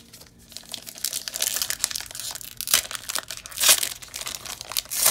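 A trading card pack's printed wrapper being torn open and crinkled by hand: a run of crackling and rustling, with a couple of louder rips past the middle.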